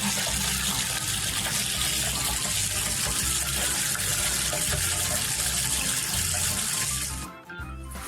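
A steady rush of running water, like a tap running hard, with a low pulse underneath about once a second. It stops about seven seconds in.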